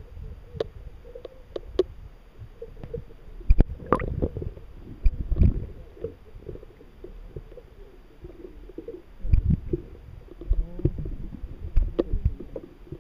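Muffled underwater rumble and gurgle as water moves against a submerged camera in its waterproof housing, with scattered sharp clicks and knocks. There is a louder spell of rumbling about nine and a half seconds in.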